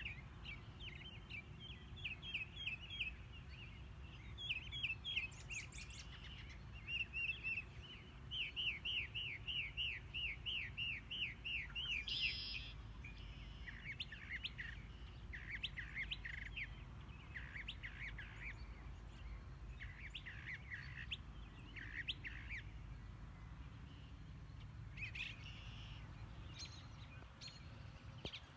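Small birds chirping and singing in repeated short notes, with a quick even run of chirps about eight to twelve seconds in, over a steady low rumble.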